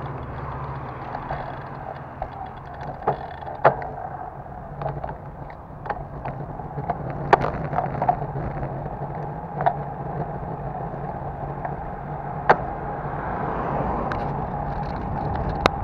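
Bicycle riding on an asphalt road: steady wind and tyre rumble on the bike-mounted camera, with a dozen or so scattered sharp clicks and knocks.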